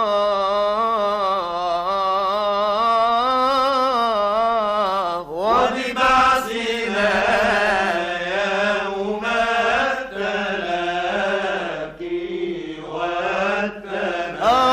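Unaccompanied male voice chanting an Islamic ibtihal: a long held note with wavering vibrato, then about five seconds in a new phrase begins, ornate and melismatic, with quick turns in pitch and short breaks.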